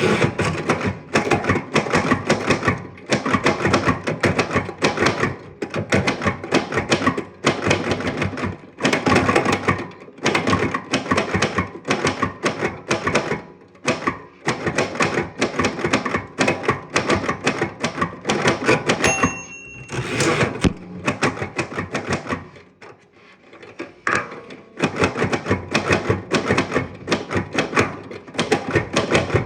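Manual typewriter being typed on: rapid, uneven clatter of typebars striking the platen. About two-thirds of the way through, the margin bell rings briefly, followed by a short quieter pause before the typing resumes.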